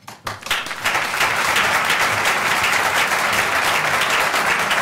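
Banquet-hall audience applauding: the clapping breaks out about half a second in, builds within a second, then stays steady and loud.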